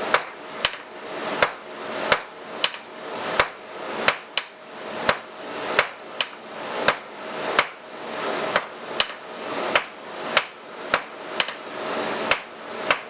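Hammer planishing a hot coil-spring steel punch blank on an anvil, smoothing its hexagonal taper. It strikes a steady run of sharp metallic blows, about one and a half a second, with a ringing tone beneath.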